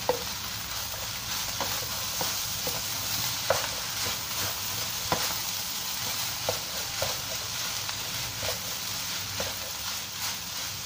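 Fried rice and bok choy sizzling in a nonstick wok while a wooden spatula stirs and turns it, with irregular sharp knocks as the spatula hits the pan.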